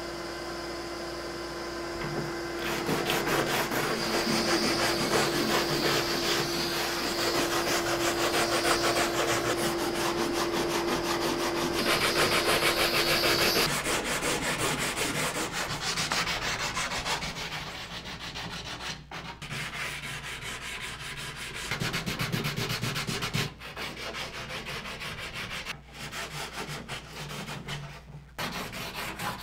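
Hand sanding of an epoxy-coated wooden kayak cockpit coaming with a small homemade sanding stick, self-adhesive sandpaper on a metal strip. Quick back-and-forth rubbing strokes, louder in the first half and softer, with brief breaks, after about 14 seconds.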